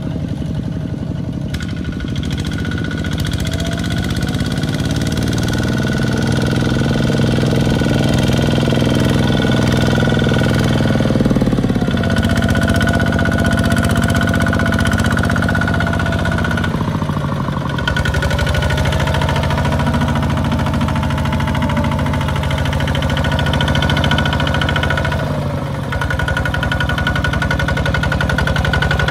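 Two-wheel walking tractor's single-cylinder diesel engine running under load with a knocking beat as it pulls a loaded rice trailer through mud. Its pitch climbs over the first few seconds, then drops sharply and picks up again three times as the throttle is eased and reopened.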